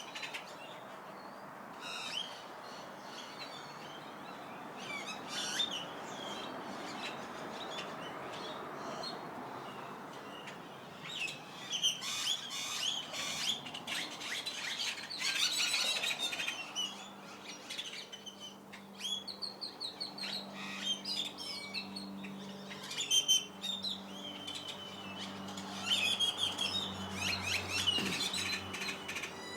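A flock of small birds chirping and calling in a tree, many calls overlapping in busy flurries. A faint low hum joins in the second half.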